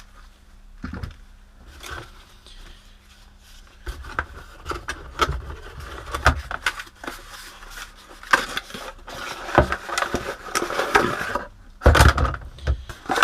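Handling noise from the rotary tool kit's case and accessories being moved about: irregular clicks, knocks and scraping, busier in the second half with a loud knock about twelve seconds in.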